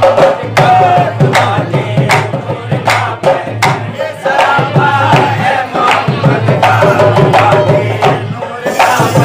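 Live qawwali: harmonium and singing voices over a steady beat of handclaps, about two to three claps a second.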